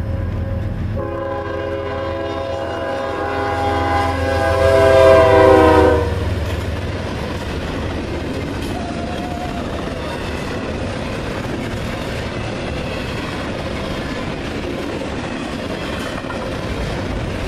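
Diesel locomotive horn sounding one long chord, beginning about a second in and loudest just before it cuts off at about six seconds, over the heavy running rumble of a passing Norfolk Southern train. After the horn stops, the rumble and clatter of the train's wheels on the rails continue steadily.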